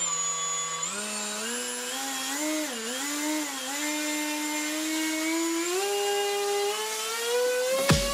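Emax RS2306 2750kV brushless motor spinning a propeller on the bench, whining; its pitch climbs in steps as the throttle is raised, dips briefly twice about three seconds in, then rises slowly. A steady high tone runs above it, and music with a beat comes in near the end.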